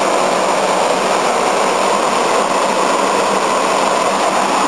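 Window-type air conditioner running with a steady, even mechanical hum, switched on while still wet after heavy rain.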